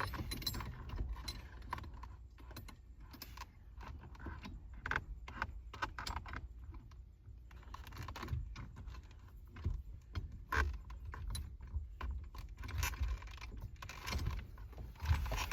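Scattered small metallic clinks and taps as bolts and a harmonic balancer puller are handled and fitted onto a steering wheel hub.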